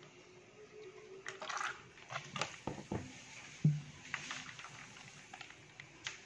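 Wet squelching and sloshing as a liquid-filled pork intestine is squeezed and lifted in a steel tray, in scattered short sounds, with one dull thump a little over halfway.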